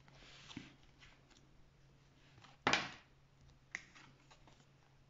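Quiet room tone with a faint steady hum, broken by a short rush of noise near the middle and a small click about a second later.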